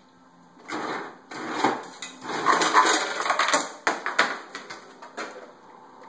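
Ice cubes rattling and crunching as a Great Dane works a refrigerator's ice dispenser and eats the cubes. It comes in irregular clattering bursts from about a second in and dies down after about four and a half seconds.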